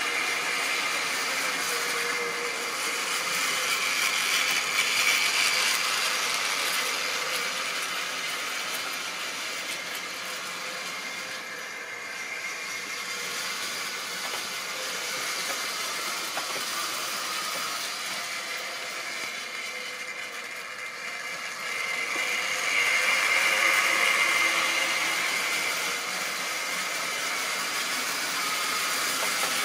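Tri-ang model train running on the layout's track: the locomotive's small electric motor whirring and the wagon wheels running on the rails. It swells twice as the train passes close, a few seconds in and again about three-quarters of the way through.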